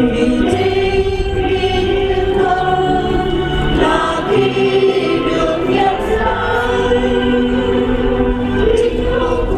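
A choir singing a slow song with long held notes.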